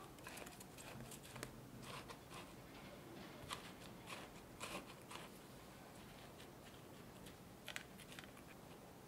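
Silicone spatula pressing and scraping buttered cookie crumbs flat in a square stainless steel cake frame: faint crunchy scrapes with scattered light clicks, fewer in the second half.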